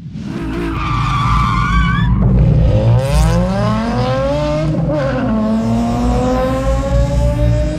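Drift car engine revving hard, its pitch climbing, breaking off about two seconds in and again about five seconds in, then climbing again, with tyres screeching.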